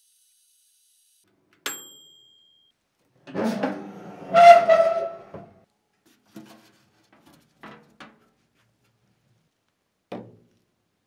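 Mechanical oven timer bell dings once as it runs out. Then the countertop oven's door is opened with a loud metallic creak and clunk, followed by a few light knocks of the cast iron cornbread pan against the oven rack.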